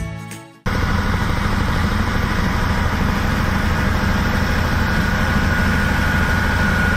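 Large single-drum road roller's diesel engine running steadily as the machine rolls slowly, cutting in abruptly about half a second in. A thin steady whine comes in over the last second or two.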